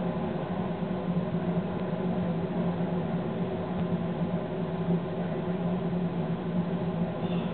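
Steady running drone of a train locomotive heard inside the driver's cab at speed: an even low hum with many overtones over the rumble of the run.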